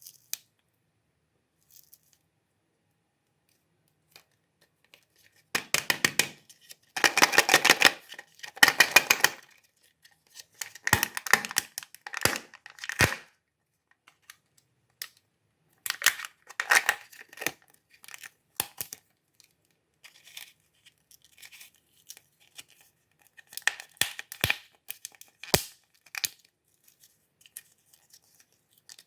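Foil wrappers of chocolate surprise eggs being torn and crinkled in several separate bouts, with silent pauses between them and a few sharp clicks.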